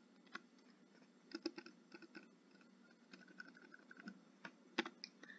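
Faint, scattered clicks of a computer keyboard, with a sharper click near the end.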